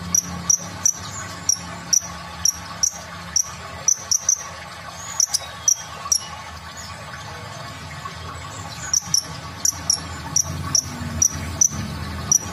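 Purple-throated sunbird (kolibri ninja) calling a quick series of short, sharp, high chips, about two to three a second, breaking off for a few seconds midway before starting again. A steady low hum sits underneath.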